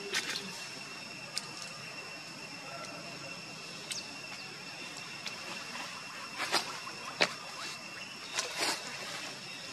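Steady high insect drone with a few short, sharp clicks and rustles scattered through it.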